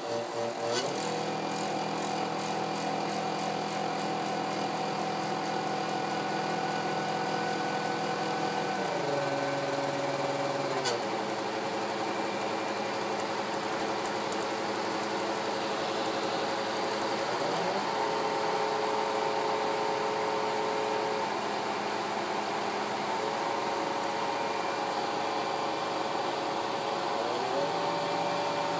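PWM-driven DC motor with a flywheel spinning steadily, giving a hum and whine made of several steady tones whose pitch jumps up or down in steps several times. There is a single sharp click about eleven seconds in.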